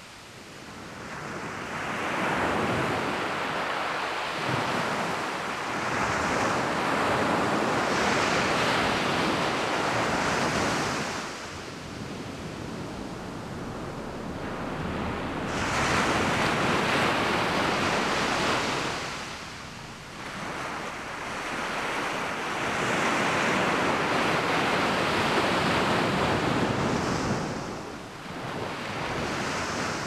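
Small waves breaking and washing up a sandy beach, swelling and falling away in slow surges every several seconds.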